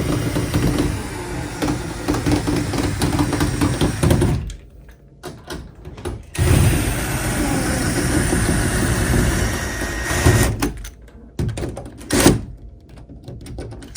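Cordless drill driving in a door knob's mounting screws in two runs of about four seconds each, with a short pause between. A few short knocks follow near the end.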